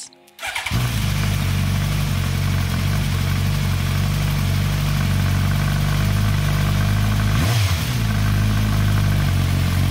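Suzuki GSX-S1000's inline-four engine idling steadily through a Bodis GPC-RSII slip-on exhaust, with one short throttle blip about seven and a half seconds in.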